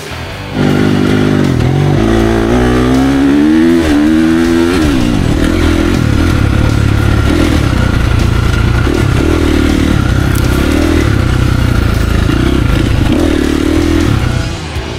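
Dirt bike engine heard from on board the bike, revving up and down as the rider works the throttle and shifts along a trail. It comes in sharply about half a second in, rises and falls in pitch several times over the first few seconds, then runs steadier under load with smaller surges, and drops away just before the end.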